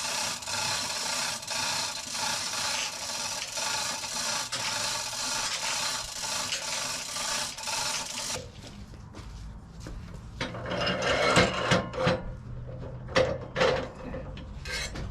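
Wood being scraped and knocked about: a steady rasping scrape with faint regular ticks for about eight seconds, then irregular sharp wooden knocks and scrapes.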